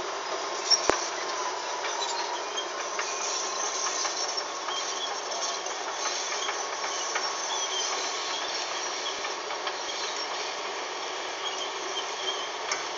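Walking dragline at work in a phosphate mine: a steady mechanical noise with a faint thin whine as the machine hauls its bucket on the drag ropes. Two sharp clicks come just under a second in.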